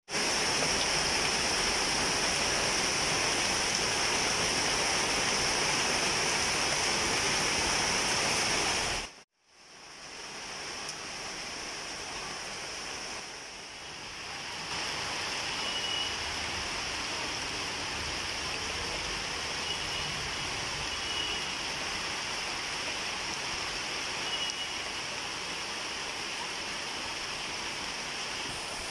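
Steady rain falling on leaves, an even dense hiss. It cuts out abruptly about nine seconds in and returns a little quieter.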